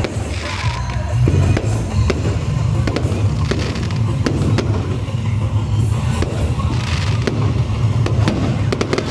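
Aerial fireworks bursting, with many sharp bangs and crackles, over music with a heavy bass.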